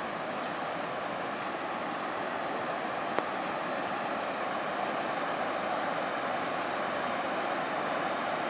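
Rushing water of a waterfall, a steady noise that grows slowly louder, with a single click about three seconds in.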